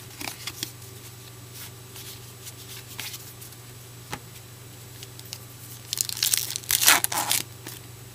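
A trading-card pack's wrapper crinkling and being torn open, with light clicks and rustles of card handling; the loudest tearing comes about six to seven and a half seconds in.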